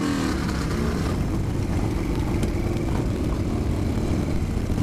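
Harley-Davidson Sportster 883-to-1200 converted V-twin running steadily as the bike rides off. It has a blown spark plug that keeps it firing off, which the owner first blamed on the rain.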